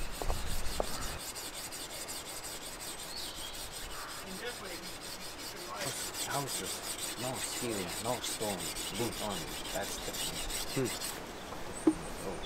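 A hand file rasping in repeated strokes along the steel blade of a drawknife to sharpen it, about two strokes a second, each stroke with a short squeal. A few low knocks come at the very start.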